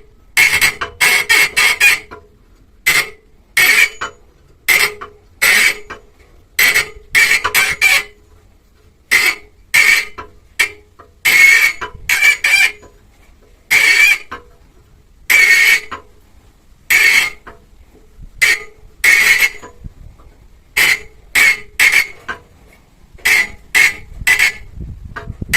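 Hammer tapping on steel in irregular runs of one to several quick strikes with short pauses between, each strike giving a brief metallic ring.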